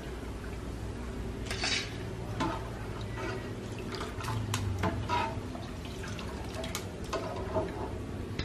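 A slotted metal spatula scoops fried peanuts out of hot oil in a nonstick wok and tips them into a wire-mesh strainer: scattered scrapes and clinks, with oil dripping and trickling from the strainer back into the pan. A low steady hum runs underneath.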